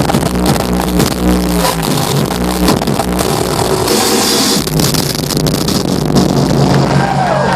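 Loud electronic dance music with heavy bass played over a concert hall sound system, with a noise swell about halfway through; near the end the crowd starts to cheer and whistle.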